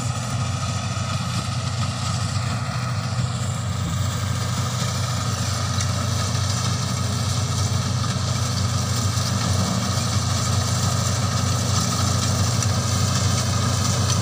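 CLAAS Crop Tiger 30 tracked combine harvester running under load as it cuts a ripe rice crop: a steady drone of engine and threshing machinery that grows slightly louder as the machine comes closer.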